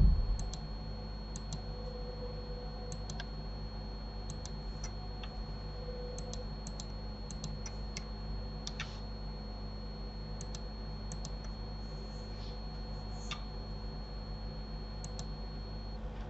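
Computer mouse and keyboard clicks, sharp and scattered, often in pairs a second or two apart, over a steady low hum. A single loud thump right at the start.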